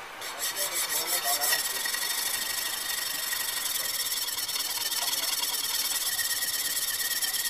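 A steel plane iron rubbed back and forth on a sharpening plate to flatten its hollow back: a few separate scraping strokes, then about a second and a half in a fast, continuous rasp, the stroking sped up threefold.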